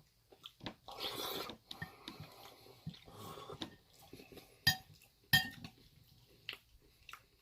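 Eating sounds: a utensil scraping and clinking against a dish or bowl, with two sharp clinks about halfway through and a few lighter ones after.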